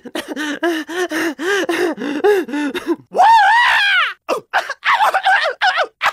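A cartoon character's wordless voice: a quick run of short grunts and mumbles, about three or four a second, then a longer, higher cry about three seconds in, followed by more short grunts.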